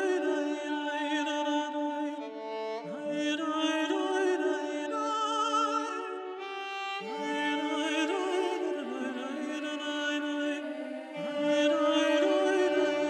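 Background classical music: bowed strings playing slow held notes with vibrato, in phrases that start again every few seconds.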